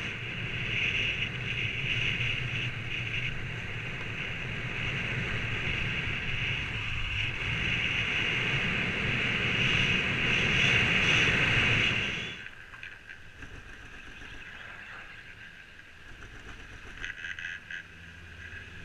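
Skis running fast over groomed, packed snow with wind rushing over the helmet camera's microphone, a steady loud rush. About twelve seconds in it drops abruptly to a much quieter wind noise with a few faint clicks.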